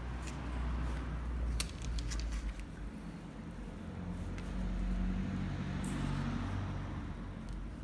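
Low steady background rumble, with a few faint clicks and rustles as gloved fingers smooth a vinyl decal onto a motorcycle's fuel tank.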